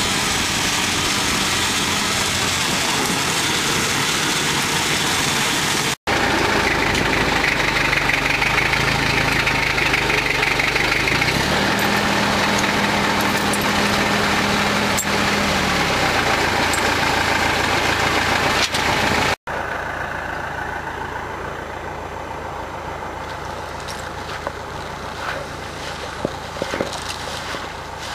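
Engines running: a steady engine during a ride through the woods behind a Massey tractor, then the Massey tractor's engine, held at a higher pitch for about four seconds midway. In the last third the engine is quieter and idling.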